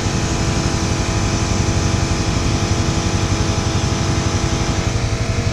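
A small motor running steadily with a rapid, even pulse, unchanging throughout.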